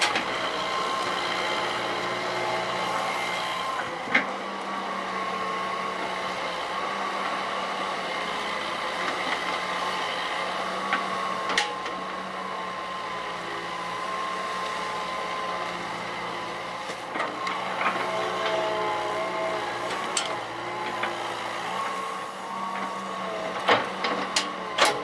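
Hitachi EX120 hydraulic excavator's diesel engine working under load, with a high hydraulic whine that wavers in pitch as the machine swings and digs. A few sharp knocks now and then, the loudest bunched near the end.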